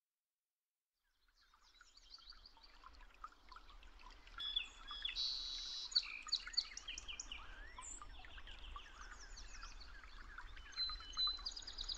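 Birds chirping, many short overlapping calls and whistles, fading in from silence about a second and a half in and busiest in the middle.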